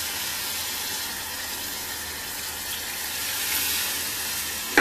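Water poured from a bowl into a pan of browned pig knuckles and broth: a steady pour that stops suddenly near the end, just after a short knock.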